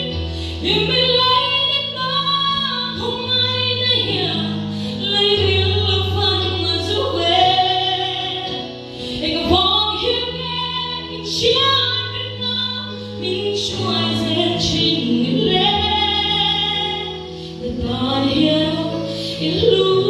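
A woman singing a slow gospel song solo into a handheld microphone through a hall's PA system, her voice holding long notes over sustained low accompaniment notes that change every second or two.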